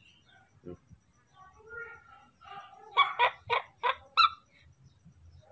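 Newborn baby monkey calling: a few faint short calls, then a quick run of about five short, loud duck-like calls, roughly three a second.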